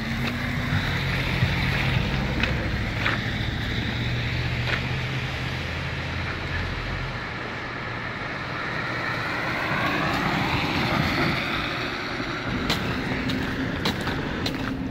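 Traffic on a wet street: car tyres hissing through water on the road, with a low engine hum in the first half and a car sweeping past a little past the middle. Footsteps tap on the wet pavement near the end.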